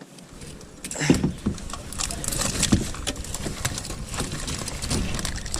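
Water splashing with a rapid clatter of knocks and rattles against a kayak, over a low rumble of wind on the microphone, starting about a second in.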